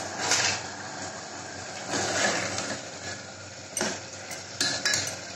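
A metal spoon stirring and scraping mutton keema in an aluminium pressure cooker, with several clinks of metal on the pot. The cooked mince is being fried down (bhuna).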